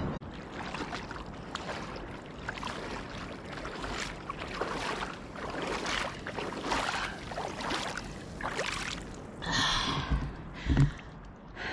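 Water splashing as a swimmer wades through cold, shallow water, in a run of uneven splashes, with gasping breaths from the cold. There is a loud thump near the end.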